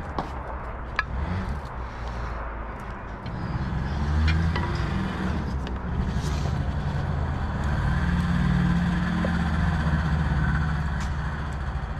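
Low engine rumble that swells about four seconds in and again from about eight seconds, with a few light knocks of a wooden spoon against a cooking pot.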